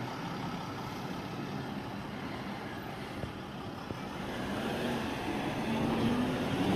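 Mercedes-Benz Sprinter ambulance's engine running as the van pulls away, getting louder as it passes close, with a low engine note rising over the last couple of seconds.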